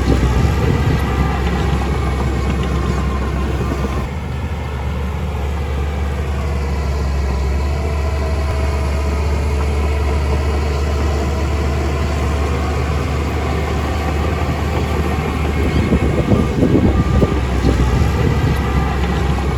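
Heavy diesel construction machine running steadily, with louder rattling stretches near the start and again near the end.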